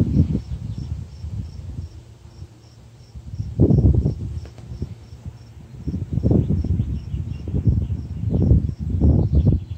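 A cricket chirping steadily, about three short chirps a second, under loud, irregular low buffeting on the microphone.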